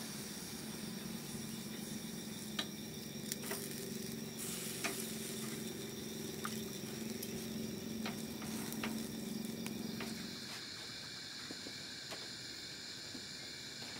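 Water monitor satay skewers sizzling on a wire grill over charcoal, with scattered pops and crackles. About ten seconds in, the sizzling gives way to a steady, high chorus of night insects.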